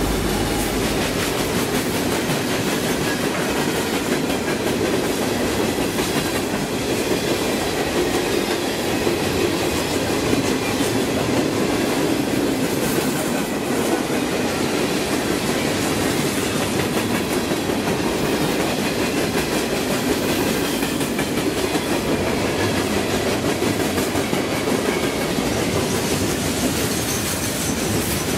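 Freight cars of a CN freight train rolling past: a steady rumble of steel wheels on the rails with a continuous clatter of wheels over the track.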